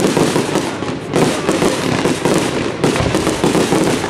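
Aerial firework shells bursting in quick succession, a dense, continuous barrage of bangs with fresh volleys at the start, about a second in and near three seconds.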